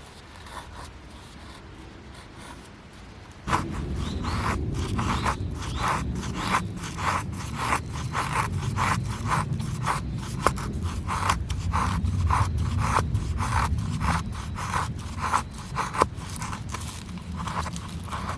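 Rhythmic scraping or rubbing strokes, about two a second, starting suddenly a few seconds in and carrying on steadily.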